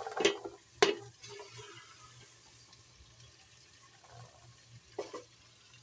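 A ladle knocking and scraping as moist chicken and chickpea curry is spooned out of the pot into a serving dish, with the soft wet slop of the food. Two sharp knocks come in the first second and another about five seconds in.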